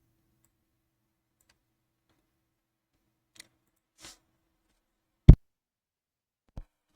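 A few scattered clicks at a computer, a second or so apart, with one much louder low thump about five seconds in.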